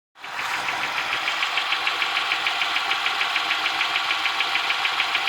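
2007 Honda Ridgeline's 3.5-litre V6 engine running with a rapid, even ticking over its steady hum. The tick persists after a camshaft replacement and a front and back valve adjustment, and its cause is unknown to the owner.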